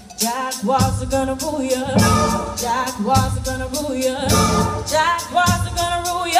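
Live song performed on stage: a lead singer with band accompaniment and a steady drum beat, played through the hall's loudspeakers.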